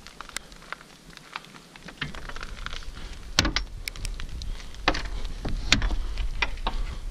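A heavy old iron-plated door being worked and pushed open: a run of sharp metallic clicks and knocks from its latch and plates, the loudest a little past halfway, over a low rumble.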